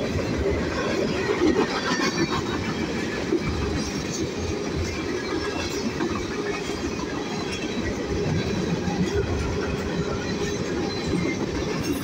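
Cars of a Union Pacific manifest freight train, covered hoppers and tank cars, rolling past: a steady noise of steel wheels on rail, with clicking as the trucks pass over the rail joints.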